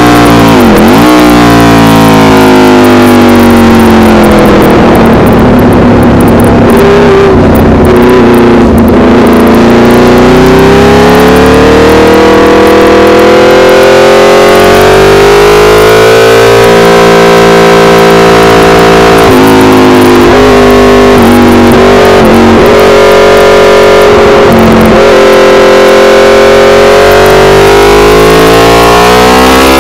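Aprilia RSV4 Factory V4 engine through an SC-Project CRT exhaust at racing revs, very loud. The pitch falls over a few seconds as the bike slows for corners and climbs again under throttle, with sudden steps at gear changes.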